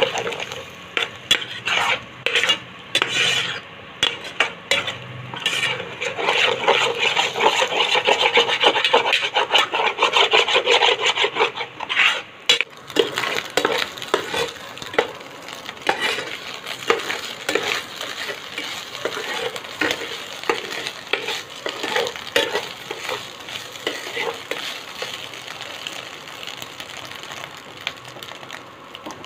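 A spatula stirring and scraping scrambled egg around a hot pan in quick, repeated strokes, with the egg frying and sizzling. The stirring is busiest and loudest in the first half and turns to lighter, sparser strokes later.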